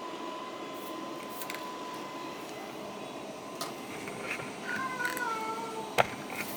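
A cat gives one drawn-out meow about five seconds in, its pitch sliding slightly down, over a faint steady high tone and scattered small clicks. A sharp knock follows just after the meow.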